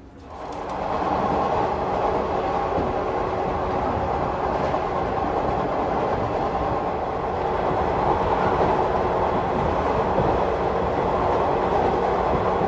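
113 series electric train running at speed: a loud, steady rumble of MT54 traction motors and wheels on rail, with a steady low hum underneath. It comes in suddenly at the start and holds steady.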